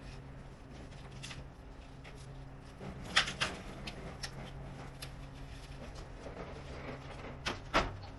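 A few sharp knocks, a pair about three seconds in and another pair near the end, over a low steady hum.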